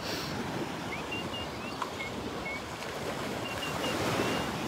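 Gentle surf on a sandy beach: small waves washing in and out in a steady hiss, with some wind on the microphone. A few short, faint, high chirps come and go over it.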